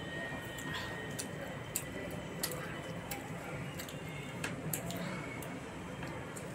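A person eating puri with curry by hand: chewing, with irregular soft wet mouth clicks and smacks.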